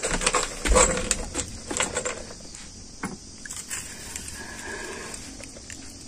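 Knocks and clicks from an iron rod being pushed and poked into a small wood fire to heat it, busiest over the first three seconds, then the fire burning more quietly.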